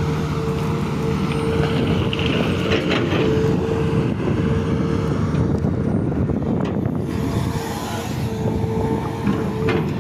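Sumitomo SH350 LC excavator running, a steady engine noise with a constant whine over it and a few sharp knocks.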